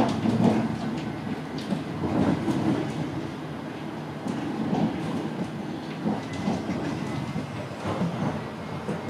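Tram running along its track, heard from inside the car: a steady low rumble with irregular knocks and clatter from the wheels on the rails.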